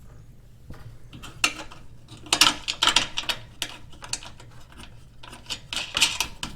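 Ratchet wrench clicking in quick runs as a nut is tightened onto a bolt, in several bursts with short pauses between.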